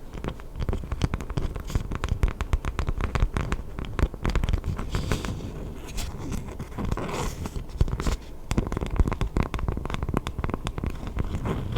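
Close-miked scratching and crackling: a dense, irregular run of quick clicks with a low rumble underneath.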